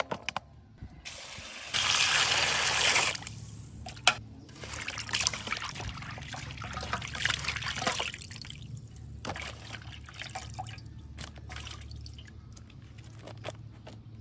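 Raw chicken feet being washed by hand in a metal basin of water: splashing, sloshing and dripping as handfuls are lifted out. A steady rush of water lasts about a second and a half near the start, and the splashing thins out toward the end.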